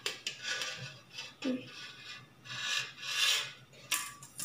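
Rasping rubs and scrapes as items are handled, with two light knocks near the end.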